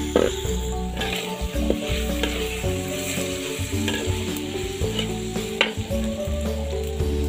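Metal spatula scraping and knocking against an aluminium wok as spicy kikil (beef skin) is stir-fried, with the food sizzling and sharp clacks now and then.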